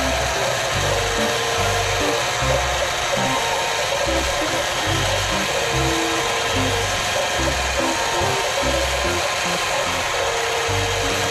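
A Huina RC toy concrete mixer truck's small drum motor whirring steadily as the drum turns and discharges its mix, under background music with a bass line.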